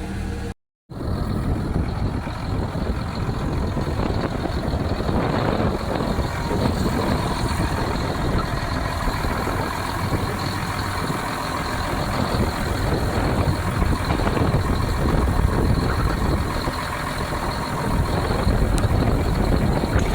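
A vehicle running steadily, a continuous low rumble with noise across the range, growing a little louder near the end.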